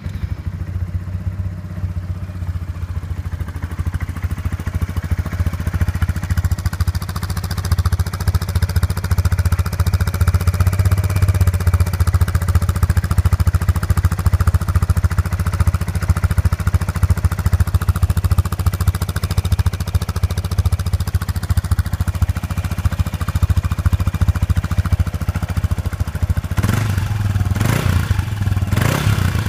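Yamaha Majesty S scooter's 155 cc single-cylinder engine idling steadily just after starting, heard through an SP Tadao Power Box Full S stainless-steel aftermarket exhaust, with several short louder bursts near the end.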